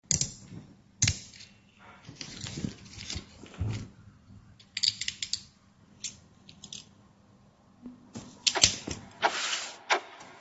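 Small alloy-metal toy revolver being handled, giving a string of sharp, irregular metallic clicks and short rattles. The clicks come in clusters, with the busiest stretch near the end.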